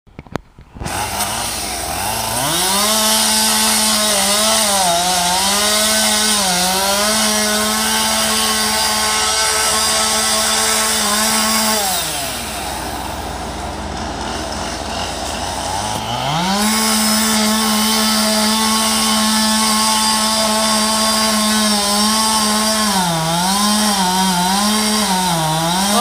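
Two-stroke chainsaw cutting into the trunk of a large cottonwood tree: it revs up about two seconds in and runs at full speed, its pitch dipping again and again as the chain bites into the wood. Around the middle it drops to idle for a few seconds, then revs back up and cuts again, dipping more near the end.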